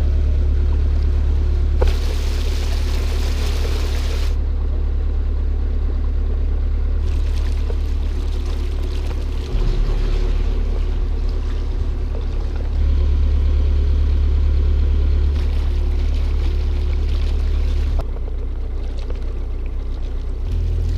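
Narrowboat engine running steadily while under way, a low, even drone that shifts in level a few times.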